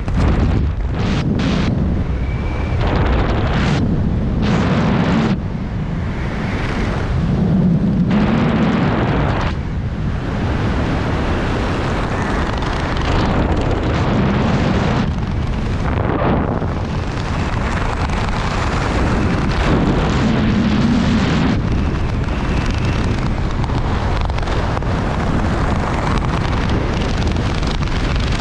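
Loud wind rushing and buffeting over a skydiver's camera microphone, a heavy rumbling roar that swells and dips.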